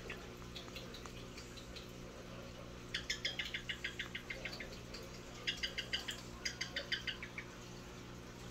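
Quaker parrot making quiet runs of rapid clicks, about ten a second, in three short bursts from about three seconds in, over a low steady hum.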